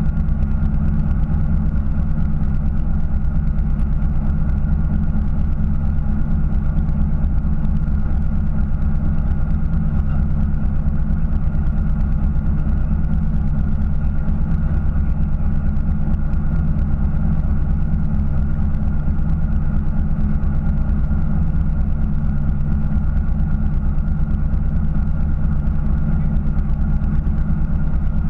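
Fishing boat's engine running steadily at idle, a constant low hum.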